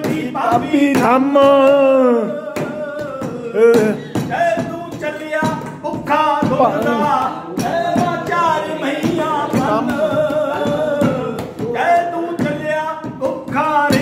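A man singing a Punjabi folk song unaccompanied, in long drawn-out lines with held, wavering notes.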